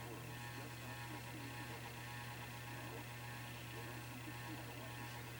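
Steady low electrical hum, with faint steady high tones above it.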